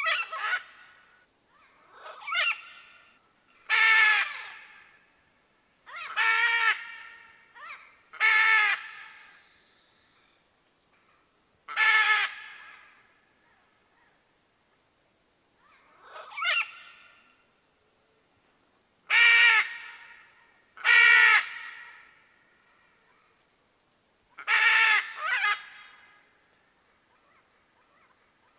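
Red macaw (arara-vermelha) giving loud, harsh squawks: about a dozen short calls, some single and some in quick pairs, spaced a second to several seconds apart.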